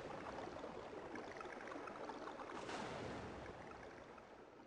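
A soft rushing wash of noise, like surf, under the title slides. It swells about two and a half seconds in, then fades away toward the end.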